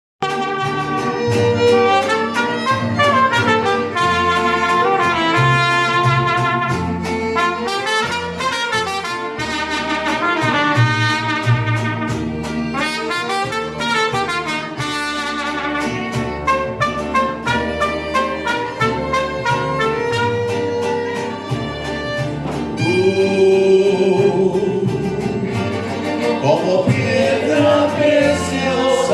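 Mariachi band playing, with trumpets and violins carrying a moving melody over a pulsing bass line.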